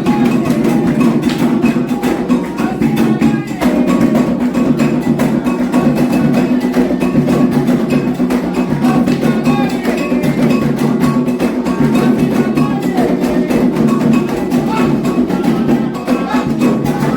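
Candomblé ritual music: atabaque hand drums and a struck metal bell playing a fast, steady rhythm, with voices singing over it.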